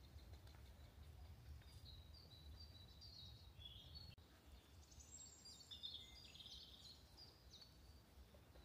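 Near silence in woodland, with faint birdsong: short high chirps and calls in two spells, over a low steady rumble.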